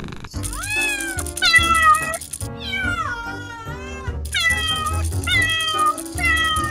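Kitten mewing over and over: about six high-pitched mews, the third one long and wavering.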